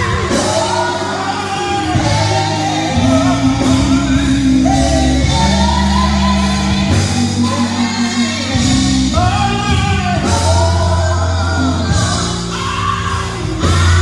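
Live band music: a man sings lead into a microphone in a strong, shouting voice over drums and bass guitar.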